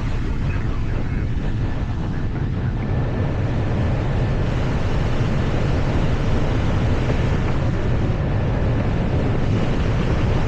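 Steady airliner flight-deck noise: a constant rush of air over the cockpit with a deep, even hum underneath, heard while the aircraft flies in to land.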